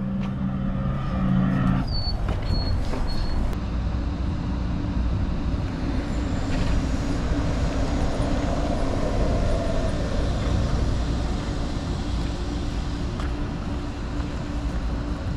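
City traffic dominated by buses idling and moving nearby: a steady low engine rumble and hum. About two to three seconds in, three short high beeps sound.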